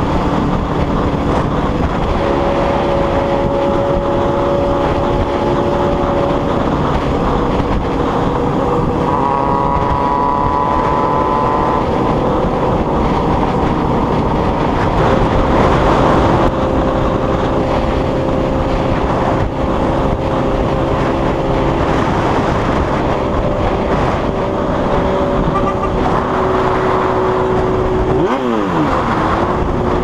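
Motorcycle engine running at road speed, heard from the rider's seat, with rushing wind and road noise. The engine note holds steady for stretches and shifts between, dropping sharply and climbing again near the end.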